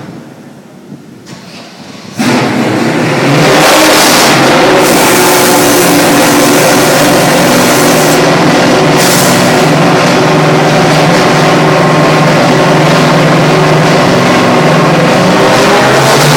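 Matech Ford GT1 race car's engine firing up about two seconds in, then running loud and steady at idle.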